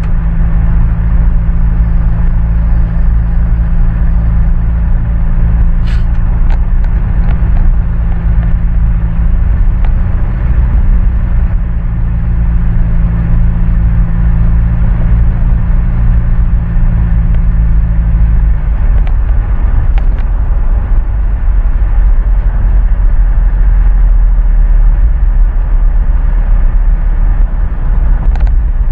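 Vehicle driving, heard from inside the cab: engine and road noise with a steady low drone that drops away about two-thirds of the way through. A few short clicks come around a quarter of the way in and again near the end.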